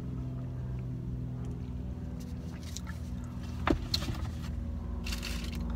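Steady low hum of a car engine idling, heard from inside the cabin. A couple of sharp clicks come about two-thirds of the way in, and a brief rustle follows near the end.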